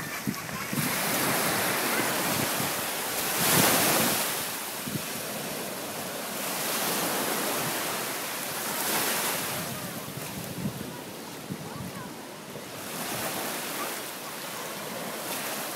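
Ocean waves breaking and washing up the beach, swelling and fading every few seconds, with wind buffeting the microphone.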